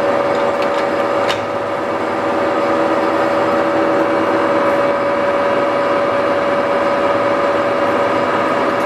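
TOS SN50c engine lathe running under power: a steady mechanical hum carrying a constant whine, with a short click about a second and a half in.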